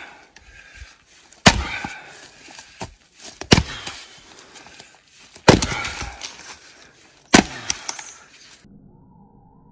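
An axe splitting firewood rounds: four heavy strikes about two seconds apart, each followed by a short ring-out, before the sound drops away near the end.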